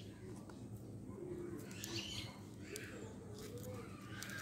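Birds calling in the background, a few low wavering calls and some higher chirps, with faint clicks as dragon fruit peel is torn by hand.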